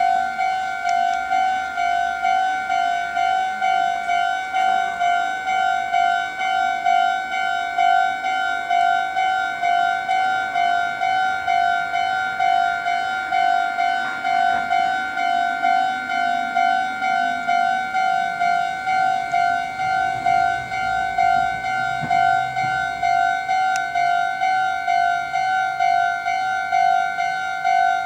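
Japanese railway level-crossing warning bell: an electronic ding at one fixed pitch, repeating steadily and evenly, signalling an approaching train.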